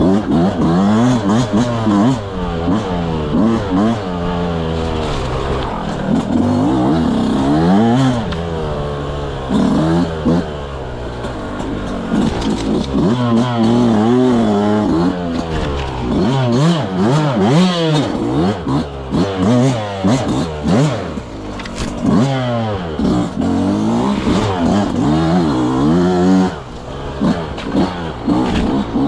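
Yamaha YZ125X two-stroke dirt bike engine, revving up and down constantly as it is ridden, with frequent knocks and rattles.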